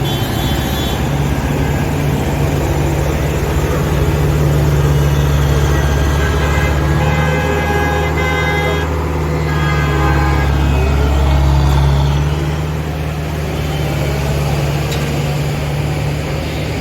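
Heavy diesel machinery engine running with a deep, steady drone, somewhat louder in the middle, while vehicle horns honk several times.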